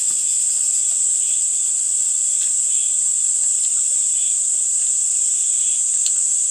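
Steady, high-pitched insect chorus: a continuous shrill trill with no breaks.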